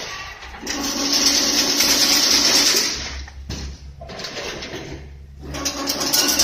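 Automatic chain-link fence weaving machine running: a loud rushing noise for about two seconds as the wire is worked, dying away, then starting again near the end, over a steady low motor hum.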